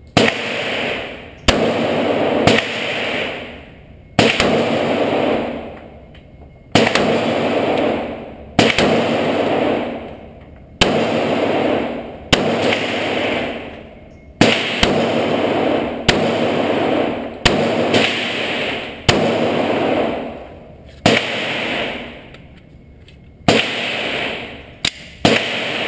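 Glock 30 pistol firing 230-grain .45 ACP hardball, a string of single shots about one to two and a half seconds apart, each blast ringing on in the concrete indoor range for a second or more.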